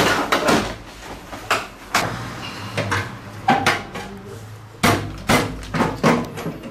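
Repair clatter on a scooter: about ten sharp, irregular knocks and clacks as its plastic body panels and metal parts are handled and bumped together.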